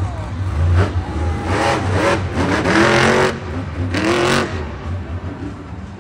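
Monster truck engine revving up and down several times over a steady deep rumble, then falling back to a lower rumble near the end.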